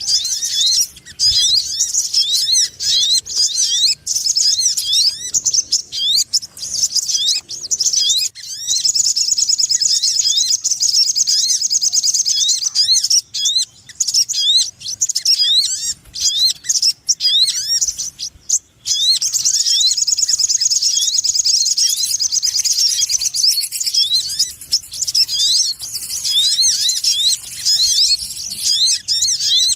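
Sogon ontong bird calls used as a trapping lure: a busy stream of short, high rising chirps several times a second, breaking twice into long fast trills.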